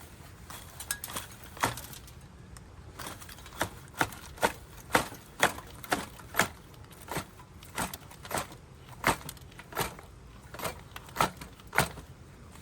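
Firewood being split or chopped: a series of about twenty sharp wooden knocks, roughly two a second, starting about a second and a half in.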